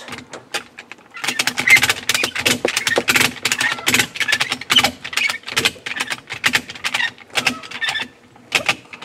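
Ratchet strap being cranked tight around a boxed steel gun safe: a fast, irregular run of metal ratchet clicks with the webbing rasping through, from about a second in until near the end.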